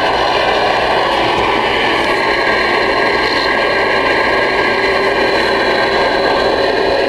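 Stryker SR-497HPC ten-meter radio's speaker putting out steady, loud band noise and static while receiving on the air.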